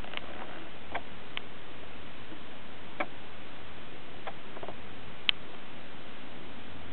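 Steady low hiss with a few faint, scattered clicks, the sharpest about five seconds in.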